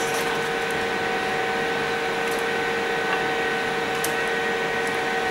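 Steady whirring hum of a kitchen extractor fan, with a few faint light clicks.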